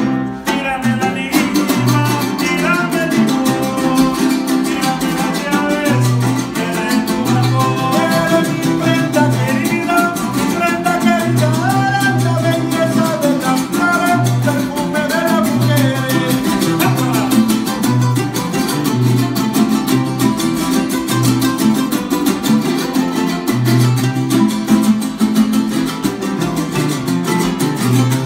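Live trio of acoustic guitars strummed and plucked, with a steady bass line, while a man sings a melody in a Latin American style over them.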